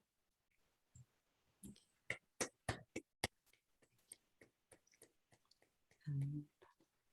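Faint clicks and taps: a quick run of sharp clicks about two to three seconds in, with scattered lighter ticks. Near the end comes a brief low hum of a voice.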